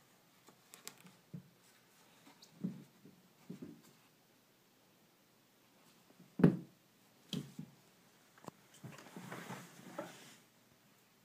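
Sneakers being handled and set down on a hardwood floor: scattered light knocks and rubbing, with one sharper thump a little past halfway and a longer rustling scrape near the end.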